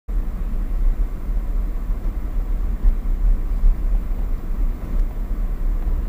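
Low, steady rumble of a vehicle driving on a snow-covered road, heard from inside the cabin.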